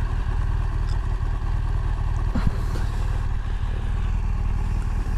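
BMW R1200GS Rallye's boxer-twin engine idling steadily while the bike stands still.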